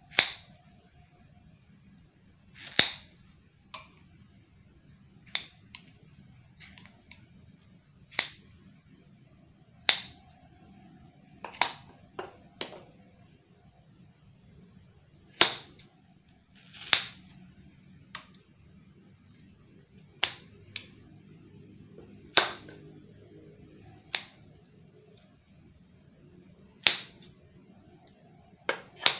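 Steel scissors snipping softened cattle-hide scraps in a water-filled slow-cooker crock, a sharp click as the blades close on each cut, at irregular intervals of about a second or two.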